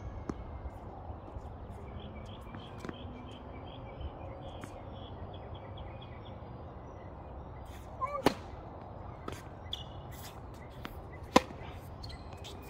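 Tennis rally on a hard court: faint ball hits and bounces throughout, a louder knock a little after eight seconds, and one sharp racket strike on the ball near the end, the loudest sound.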